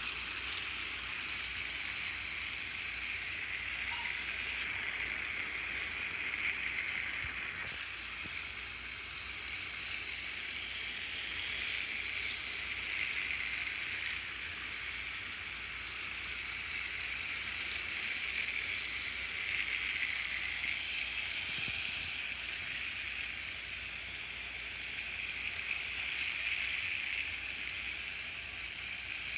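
Battery-powered TrackMaster toy train engines running together on plastic track: a steady whir of their small motors and gearboxes.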